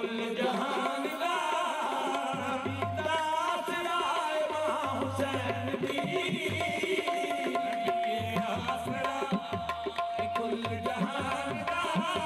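Qawwali music with a hand-drum rhythm under a held, wavering melody line. Deep drum strokes join about two seconds in and repeat through the rest.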